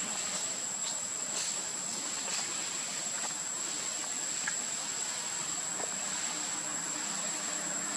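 Steady drone of forest insects: one continuous high whine over an even hiss, unchanging throughout.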